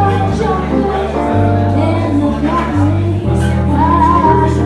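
Live band music: a woman sings over keyboard and electric guitar, with a bass line stepping from note to note beneath her voice.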